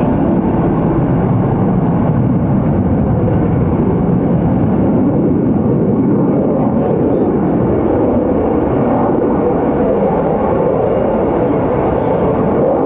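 Lockheed Martin F-22 Raptor's twin Pratt & Whitney F119 turbofan engines, a loud, steady jet roar as the fighter flies its demonstration.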